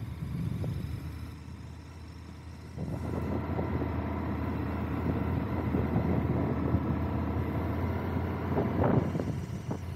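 Motorcycle engine running with wind noise, growing louder about three seconds in.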